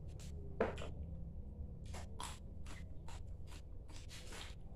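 Close-up mouth sounds of a person eating by hand: short wet chewing and lip-smacking clicks, irregular, two or three a second, with one brief louder sound about half a second in.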